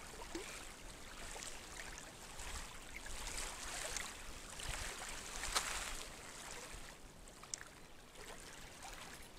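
Small wind-driven waves lapping and splashing in the shallows of a lake, with a low wind rumble on the microphone. One sharp click about halfway through.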